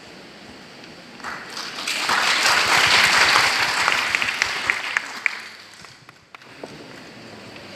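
Audience applauding: the clapping builds about a second in, swells, then dies away with a few last scattered claps at about six seconds.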